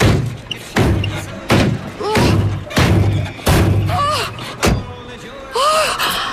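Car doors slammed again and again against another car's bodywork: a heavy metal bang about every second, with a woman's short yells between the bangs.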